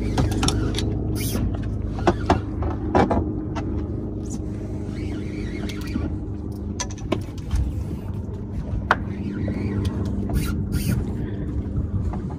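Boat engine running steadily with a low hum, with a few sharp knocks scattered through it.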